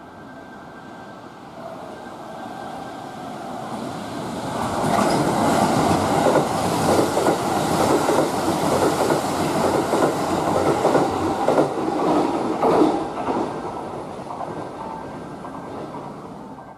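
Kintetsu 80000 series Hinotori limited express electric train passing through the station without stopping. A rumble builds as it approaches, then comes a long run of rhythmic wheel clicks over the rail joints, which fades as the last cars go by.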